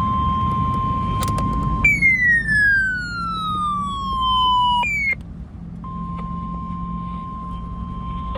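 NOAA Weather Radio's 1050 Hz warning alarm tone sounds steadily, signalling the alert broadcast that follows. About two seconds in it is broken by a louder siren-like tone that falls in pitch over about three seconds, jumps back up briefly and stops; the steady alarm tone returns about a second later.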